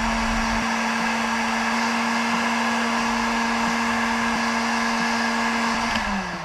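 Electric heat gun running with a steady hum and rush of air as it shrinks heat-shrink tubing over crimped cable lugs. It is switched off about six seconds in, its fan winding down with a falling pitch.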